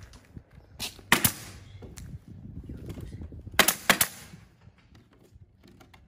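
Pneumatic nail gun firing nails into a plywood mold, about six sharp shots in two groups: one shot just under a second in with two quick ones right after, then three in fast succession past three and a half seconds.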